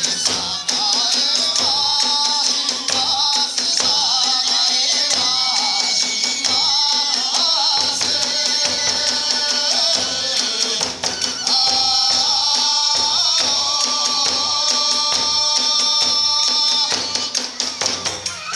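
Iwami kagura festival music: a melody over the clash of small hand cymbals and drum strokes, with the cymbals' high ringing held almost throughout.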